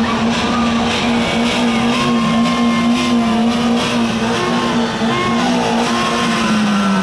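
A horn sounding one long, steady, low note, held throughout, with shorter higher toots from other horns and a noisy background of street traffic over it.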